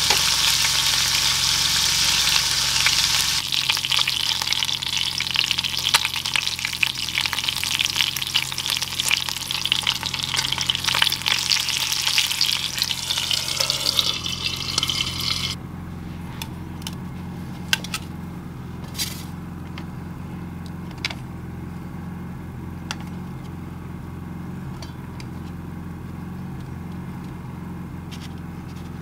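Hamburger patty sizzling and crackling in bacon grease in a cast iron skillet. About fifteen seconds in, the sizzle cuts off suddenly, leaving a steady low hum and a few light clicks.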